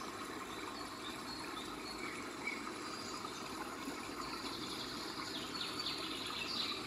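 Low steady background noise with a few faint, short high chirps, most of them in the second half.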